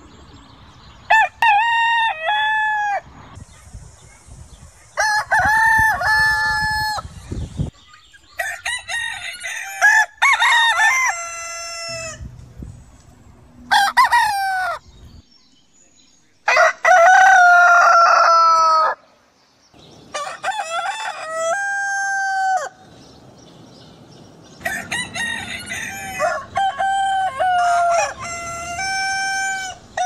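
Roosters crowing, one cock-a-doodle-doo after another every few seconds, some calls running into each other.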